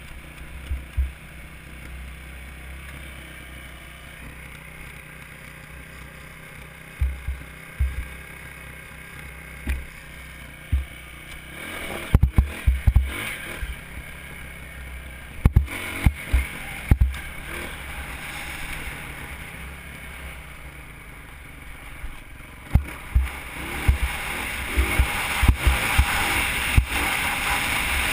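Wind rushing over a helmet-mounted camera's microphone on a ride over rough dirt trail, with many low thumps from bumps and buffeting. The rush grows louder over the last several seconds.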